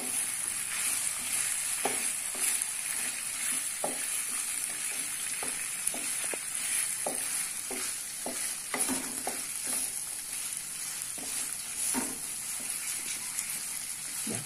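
Ground spice paste sizzling as it is sautéed in a wok, stirred with a spatula that scrapes and knocks against the pan at irregular intervals.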